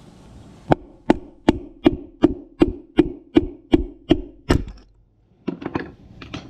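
A hammer drives a screwdriver against the outer lip of a worn wheel bearing to knock it out of a zero-turn mower's front wheel hub. About eleven even, ringing metal strikes come at roughly two and a half a second. After a brief pause, a few lighter taps follow near the end.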